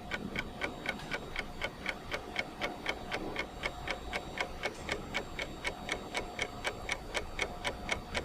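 Clock-ticking countdown timer sound effect: steady, even ticks at about four a second.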